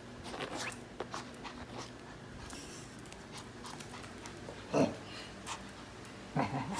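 Shih Tzu tussling with a plush toy, making short dog noises. The two loudest come about two-thirds of the way in and near the end, over light scuffling and clicks.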